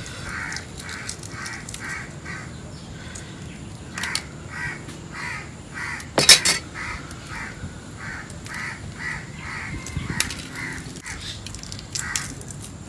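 Shells of hard-boiled chicken eggs cracked and peeled by hand, with sharp cracks about four and six seconds in, the second the loudest. Behind it a bird call repeats steadily, about three times a second.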